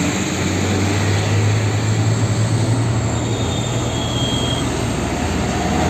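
A heavy vehicle engine running steadily, a low drone under a loud rushing noise.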